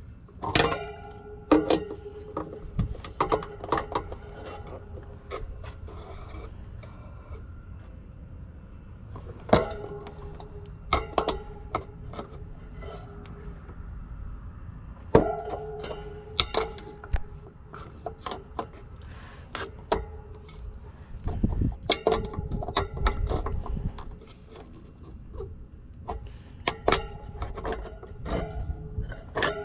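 Irregular metallic clinks and clanks from an adjustable wrench working the nuts that mount a condenser fan motor to the heat pump's metal fan grille. Several knocks leave the grille ringing briefly, and a low rumble comes in about two-thirds of the way through.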